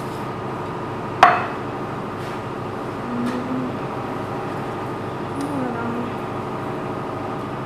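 One sharp clink of kitchenware about a second in, with a short ring, over a steady mechanical hum.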